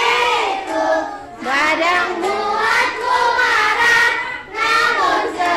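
Children singing a song together in phrases with held notes, with short breaths between phrases about a second in and again near the end.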